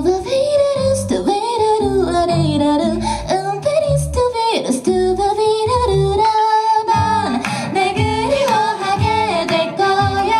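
Two women singing a Korean song as a duet into microphones, over an instrumental accompaniment with a steady low bass line.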